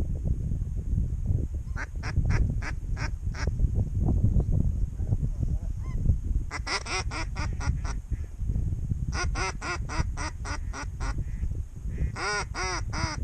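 Geese calling: several bouts of short, high-pitched honks given in quick series.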